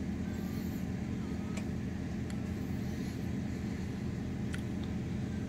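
Car engine idling, heard from inside the cabin: a steady low hum, with two faint clicks.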